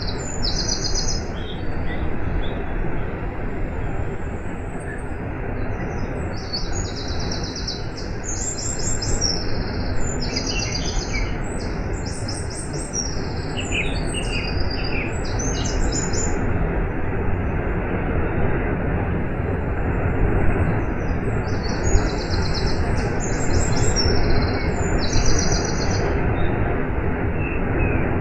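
Steady rush of falling water from a waterfall, with a small bird singing short, high, trilled phrases over it again and again, pausing for a few seconds past the middle.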